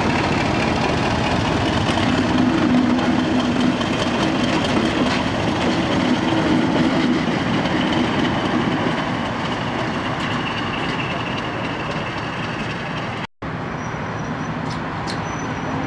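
Class 50 diesel locomotive's English Electric V16 engine running as the locomotive pulls away along the track, slowly fading. The sound cuts out for a split second near the end.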